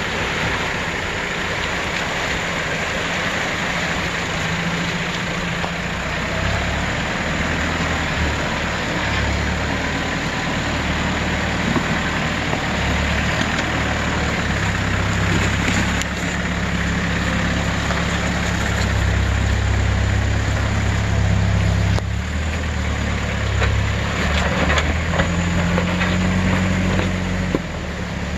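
Land Rover Discovery's turbo-diesel engine running at low revs as the four-wheel-drive wades through a creek and crawls over rock, with water rushing and splashing around the wheels in the first part.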